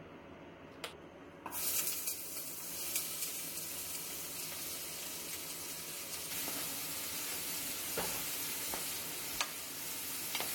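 Chopped onion and carrot sizzling in hot olive oil in a pot, the sizzle starting suddenly about a second and a half in. A few knocks of a wooden spatula stirring them sound through it.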